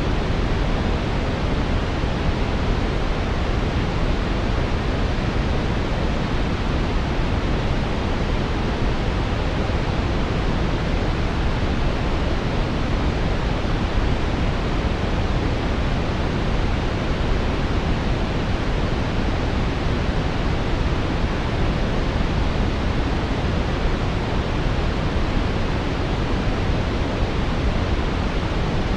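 Steady brown noise: an even, deep rushing hiss, strongest in the low end and rolling off toward the top, with no change or events.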